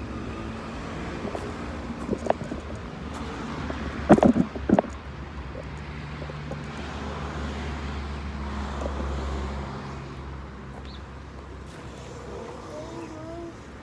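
A motor vehicle's engine running steadily on the move, its low hum easing off after about ten seconds. A few loud knocks come about four to five seconds in.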